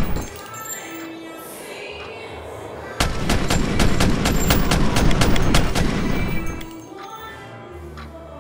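Pistol gunfire: a long string of rapid shots starting about three seconds in and lasting some three and a half seconds, with film score music underneath. A few shots also trail off right at the start.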